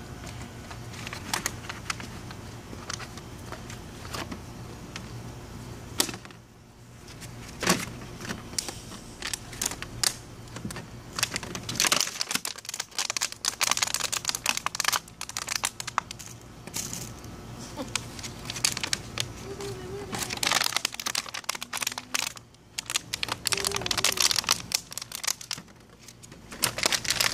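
Empty plastic water bottle crinkling and clattering in fits as a puppy chews and paws at it in a plastic kiddie pool, with scattered sharp clicks.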